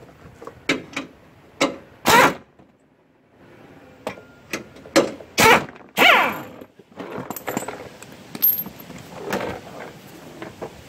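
Short bursts of a handheld air tool spinning out the bolts of a plastic splash shield, about seven sharp bursts in the first six seconds, with metallic clinks. After that, quieter rubbing and knocking of the plastic shield as it is lowered.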